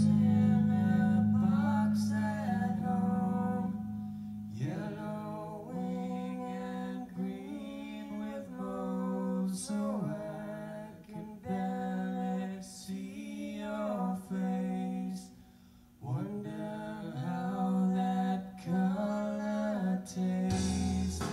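An acoustic guitar song with singing, played back through refurbished Fisher XP-7 loudspeakers and heard in the room, with a brief pause about three-quarters of the way through.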